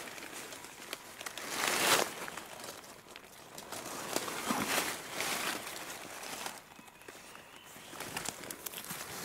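Dry leaf litter rustling and crunching under footsteps and handling, in irregular crackling bursts, loudest about two seconds in.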